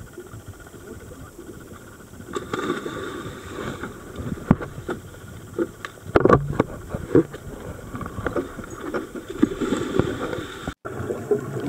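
Scuba divers jumping from a dive boat into the sea, several separate splashes over a steady rush of wind and water, the loudest splash about six seconds in.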